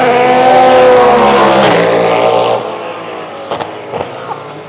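A race car passing close at speed: a loud engine note that falls in pitch as it goes by, then fades to quieter track noise about halfway through.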